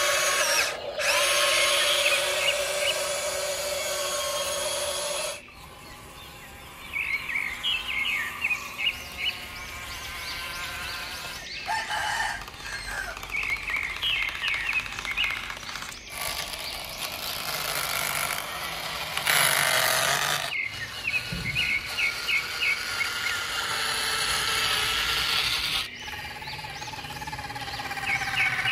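Electric motors and gearboxes of radio-controlled construction models whining at steady pitches, the sound changing abruptly several times between clips, with birds chirping now and then in the background.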